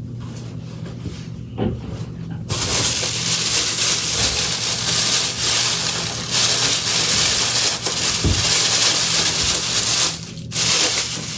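Clear plastic packaging bag crinkling and rustling loudly close to the microphone as it is opened and a purse is worked out of it. The crinkling starts about two and a half seconds in, breaks off briefly near the end, then resumes.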